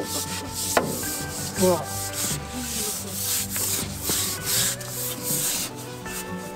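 Stiff-bristled brush scrubbing a wet, freshly sanded steel boat deck, in quick back-and-forth strokes about two or three a second, washing the surface down before rust treatment.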